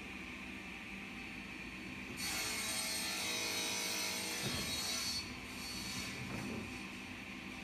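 Large wooden panel scraping and rubbing against the wooden bed frame as it is lowered into place. The scrape starts about two seconds in and lasts about three seconds, with a couple of low knocks of wood on wood.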